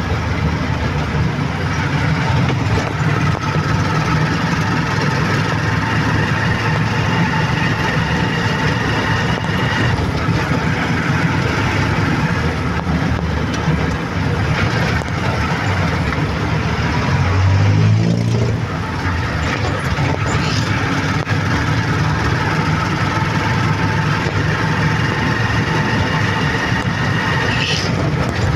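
A small vehicle running steadily as it drives along a street, its engine a steady low rumble with a few steady higher tones over it. About two thirds of the way through, a louder rumble rises in pitch for a second or two, and a brief rising whistle sounds near the end.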